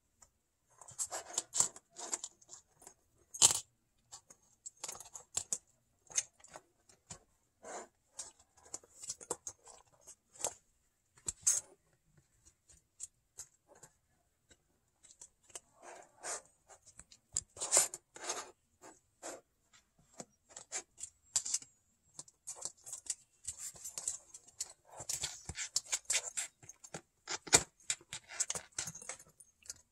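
Kittens batting and biting plastic coin flips and clear acrylic coin stands: irregular light plastic clicks, taps and scratchy rustles, with a few sharper clacks scattered through.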